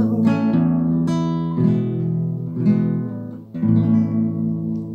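Acoustic guitar playing the closing chords of a song: chords struck about once a second and left to ring, the last one dying away near the end.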